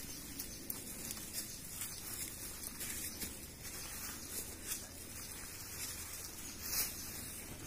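Dry leaf litter and twigs rustling and crackling under an elephant's steps, irregular light crunches with a louder one near the end.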